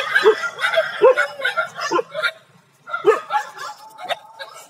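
Several stray dogs yipping and whining in short, pitched calls, with a brief lull a little past the middle before the yips start again.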